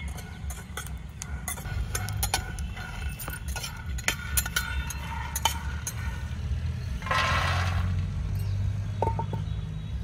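Metal spatula stirring and scraping raw peanuts as they dry-roast in a frying pan, with many small clinks and scrapes. About seven seconds in, a short rattling rush as the roasted peanuts are tipped onto a steel plate, over a steady low rumble.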